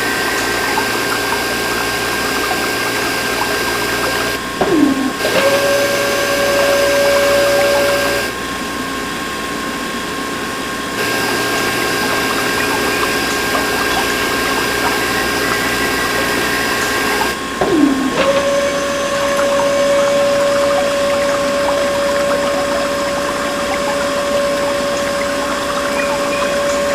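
Small battery-powered DC motors of a model borewell rig running with a steady whine, with water running from a toy submersible pump. A second, lower motor tone comes in with a short falling slide about five seconds in, drops out around eight seconds, and comes in again the same way at about eighteen seconds.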